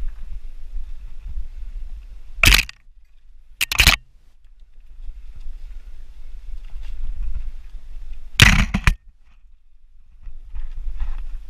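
Mountain bike riding over a rough dirt trail, with low wind rumble on the microphone and three loud clattering jolts as the bike hits bumps: one about two and a half seconds in, one near four seconds and one past the middle.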